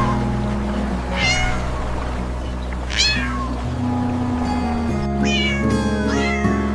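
A cat meowing several times, short high meows about a second in, at about three seconds and a few more from five seconds on, over background music with steady held notes.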